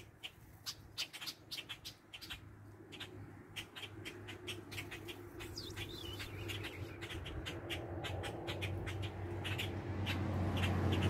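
A motorboat engine's low, steady hum growing gradually louder as it approaches across the lake, with scattered sharp clicks and ticks over it.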